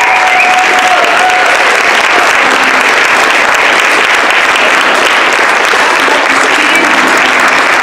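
Audience applauding: a steady, dense clapping that does not let up, with a few voices calling out within it.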